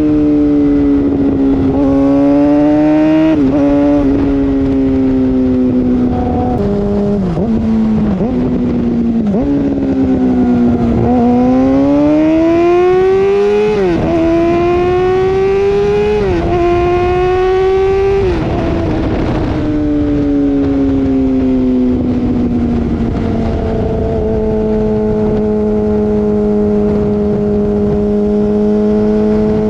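Yamaha R6's 600cc inline-four running through a loud aftermarket M4 Street Slayer exhaust with the muffler box deleted, ridden through the gears. The revs sag slowly at first, then climb under throttle and drop sharply at a run of upshifts around the middle, fall away and settle into a steady drone near the end.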